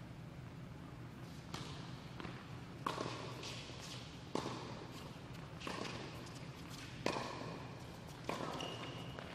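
Tennis balls struck by racquets and bouncing on a hard court during a doubles serve and rally: sharp pops about every one and a half seconds, each echoing in a large indoor tennis hall.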